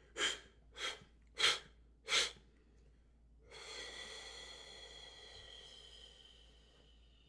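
A man blowing breath out forcefully through the mouth in four short puffs, then one long exhale that slowly fades away: emptying the lungs at the end of a pranayama breath.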